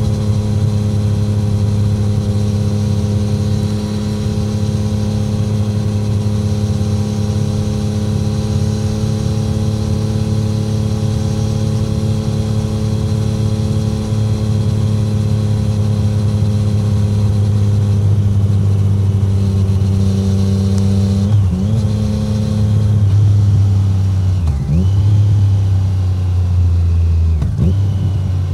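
2017 Triumph Street Triple 765R's inline three-cylinder engine through an SC-Project SC1-R titanium exhaust, cruising at steady revs, with no wind noise. In the last third come three quick drops and jumps in pitch about three seconds apart: downshifts with throttle blips as the bike slows.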